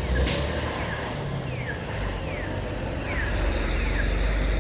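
Accessible pedestrian crosswalk signal sounding a short falling chirp about every three-quarters of a second, over a steady rumble of road traffic. A brief hiss-like burst comes just after the start.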